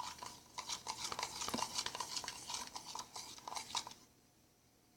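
Homemade glue slime being stirred in a container, quick scraping and clicking strokes that stop about four seconds in. The mixture is still runny and not forming.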